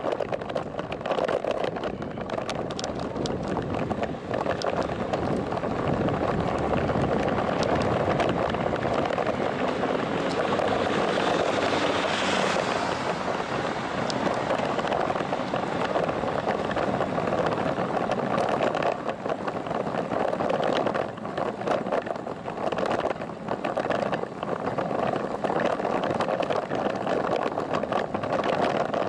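Wind buffeting the microphone of a camera mounted on a moving bicycle, a steady fluttering rush with road and tyre noise underneath.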